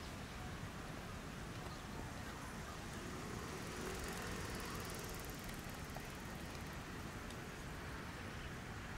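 Steady outdoor city ambience: an even background hum and hiss, with a faint pitched sound swelling a little around the middle.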